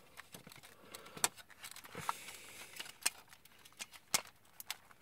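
Plastic parts of a DX Grand Bird transforming robot toy clicking and knocking as they are turned and their pegs pushed into holes: a handful of separate sharp clicks.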